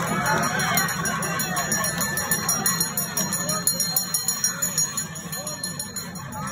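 Brass hand bell rung in rapid, steady strokes, about five a second, with a crowd's voices underneath.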